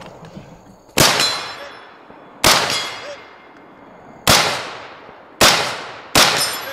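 Five gunshots at uneven intervals, each with a long ringing tail. Thin lingering tones after several shots fit steel targets ringing on hits.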